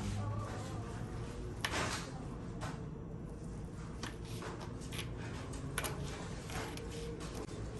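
Dishes and cutlery clinking and knocking now and then, a dozen or so short sharp clicks over a steady low hum.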